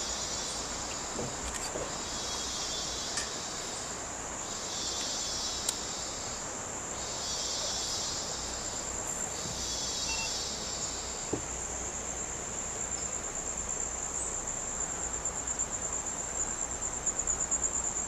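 Rainforest insects calling: a steady, high-pitched trill runs throughout, and under it a lower buzzing chorus swells and fades in pulses about two seconds long, five times, stopping about two-thirds of the way through.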